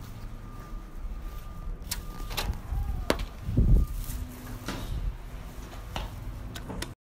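A building's glass entrance door being opened and let fall shut: a couple of sharp latch clicks, then a low thud about three and a half seconds in, with footsteps and the rustle of a hand-held phone around it.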